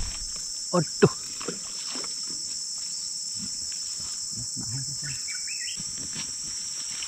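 A steady, high-pitched insect chorus from the riverside vegetation, with a short stepped rising chirp about five seconds in.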